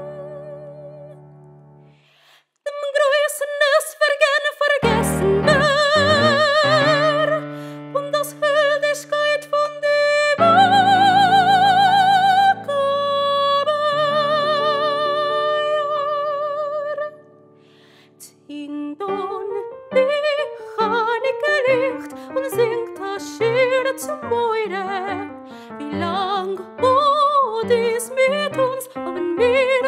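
A woman singing a slow song in long held notes with wide vibrato, accompanied by chords on a digital piano. The music dies away almost to silence about two seconds in and again around seventeen seconds; after that the piano plays a busier, flowing accompaniment under the voice.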